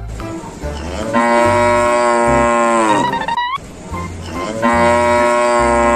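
Cow mooing: two long, drawn-out moos, each dropping in pitch at the end, over background music with a steady bass beat.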